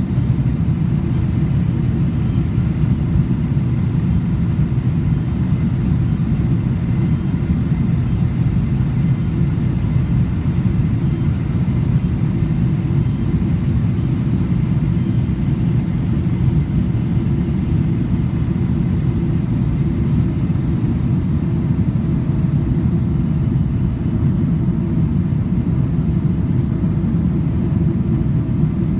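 Steady, even low rumble of a jet airliner at takeoff power, with faint steady whine tones above it.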